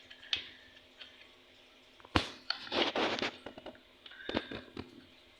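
Handling noises from working on a string trimmer by hand: a sharp knock about two seconds in, a short scraping rustle around three seconds, and a few light clicks near the end.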